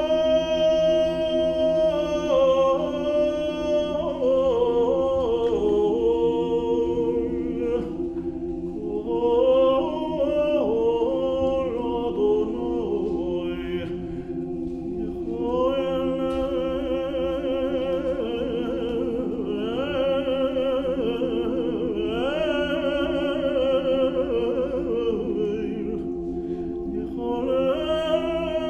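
Cantorial tenor solo: a cantor sings an ornamented, melismatic chant with wide vibrato, while a choir holds sustained chords beneath him. The solo line stops briefly about halfway through and again near the end as the held chords go on.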